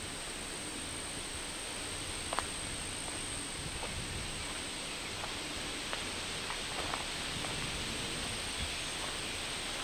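Woodland ambience on a summer trail: a steady high-pitched insect drone over an even background hiss, with a few faint ticks.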